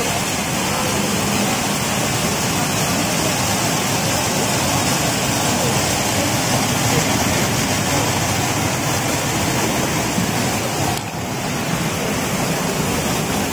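Steady rushing noise of a tea colour sorter running in production, with a short dip about eleven seconds in.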